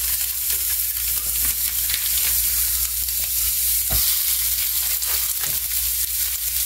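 Breakfast sausage patties sizzling in a hot electric skillet: a steady frying hiss with small crackles. About four seconds in, a short soft pat as another raw patty is pressed into the pan.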